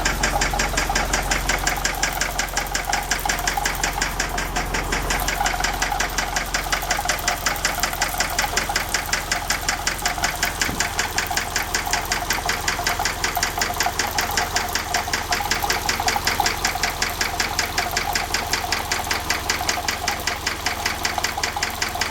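Engine idling with a steady, rapid, even knock. The owners suspect a lifter or a connecting rod.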